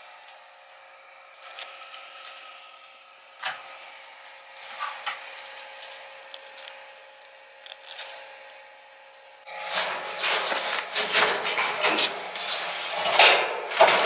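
Clutter being moved by hand. Scattered knocks and clicks come first, then from about ten seconds in there is louder, busy clattering and rustling of objects being shifted and pulled out, over a faint steady hum.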